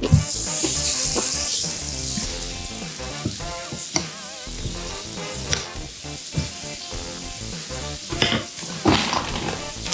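Raw beef slices sizzling as they are laid on a hot ridged grill plate: a loud hiss at first that settles after about two seconds into a steady sizzle. There are a few sharp clicks of metal tongs near the end.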